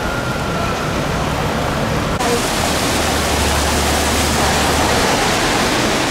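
Steady hiss of heavy rain falling on a city street, which turns brighter and louder about two seconds in.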